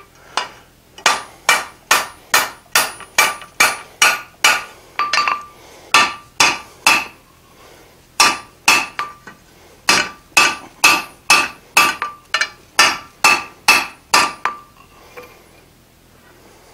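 Blacksmith's hand hammer striking a red-hot iron bar on the anvil, upsetting a square corner: steady blows about two a second, each with a short metallic ring. There is a brief pause near the middle, and the hammering stops a couple of seconds before the end.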